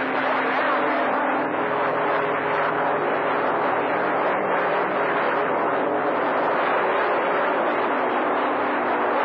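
CB radio receiver tuned to channel 28 during skip, giving out a steady rush of static with a few faint steady tones beneath it.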